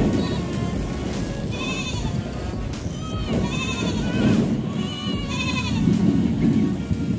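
Goats bleating again and again, a short wavering bleat every second or two, over a steady low background sound.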